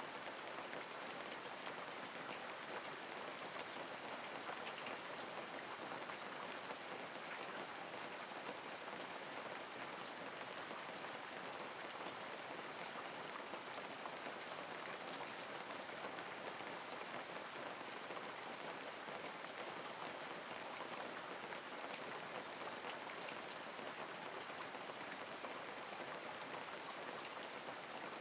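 Steady light rain falling, an even patter of many small drops.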